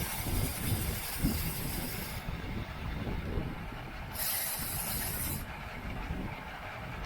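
Wind buffeting and road rumble from a bicycle racing in a criterium, with a high hiss that cuts out about two seconds in and comes back briefly around four seconds in.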